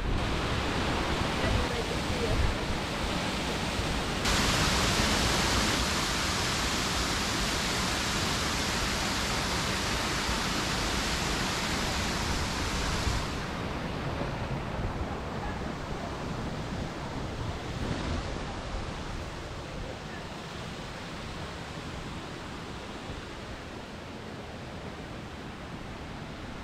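Waterfall rushing, a steady even noise of falling water. It gets suddenly louder and brighter about four seconds in, drops back about thirteen seconds in, then slowly fades.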